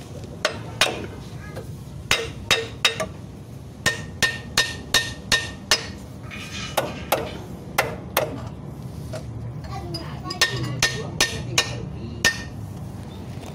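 Hammer blows on the metal of a Toyota Kijang Innova's front lower control arm: a string of sharp, irregular strikes, some leaving a short metallic ring.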